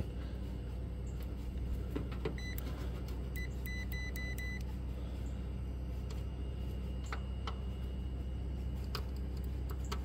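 A quick series of short, high electronic beeps from a Fieldpiece clamp meter as its test leads are held on the AC contactor terminals, about two to four and a half seconds in, over a steady low hum; a few light clicks follow later.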